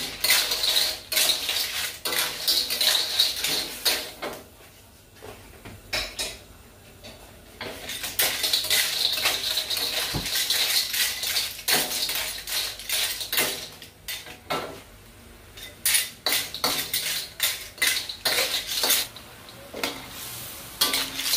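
A spatula scraping and knocking against a wok while clams in their shells are stir-fried, the shells clattering, in spells of stirring with short pauses between.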